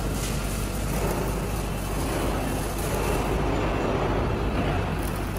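Steady mechanical din of factory machinery running, an even noisy rumble with a constant low hum underneath.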